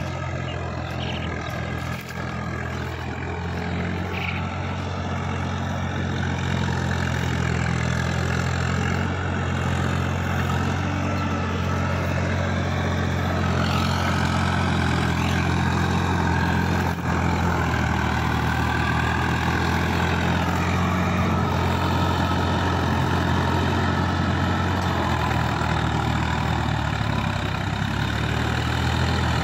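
Farm tractor's diesel engine running steadily as it pulls an implement through a flooded paddy field, growing louder over the first several seconds as it draws nearer.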